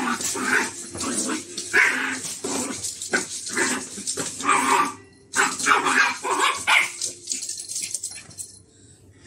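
Puppy barking in a quick, irregular string of yaps, with a short break about five seconds in; the barking dies away after about seven seconds.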